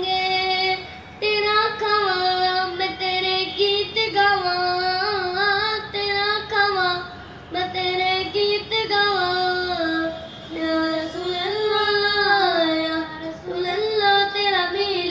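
A boy sings a naat, an Urdu devotional song in praise of the Prophet, unaccompanied into a handheld karaoke microphone. He sings one melody line in drawn-out phrases with short pauses between them.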